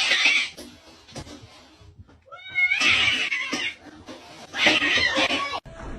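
A cat vocalizing in three loud outbursts, each about a second long.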